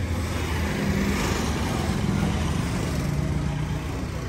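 Massey Ferguson tractor's diesel engine running steadily.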